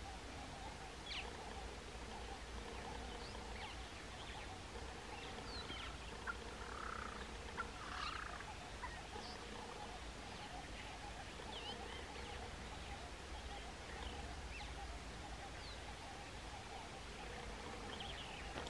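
Outdoor bush ambience: scattered short bird chirps and calls, a faint low note that comes and goes every second or so, and a steady low rumble underneath.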